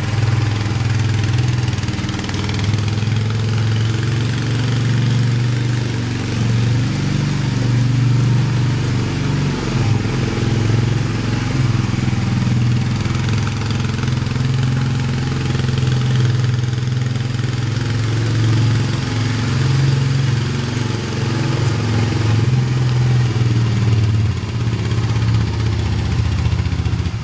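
Honda TRX300 FourTrax ATV's single-cylinder four-stroke engine running as the quad is ridden around, its note rising and falling a little with the throttle.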